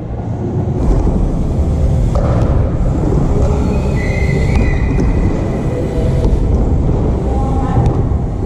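Steady low rumble with a hiss over it. Faint distant shouts come in about four seconds in and again near the end.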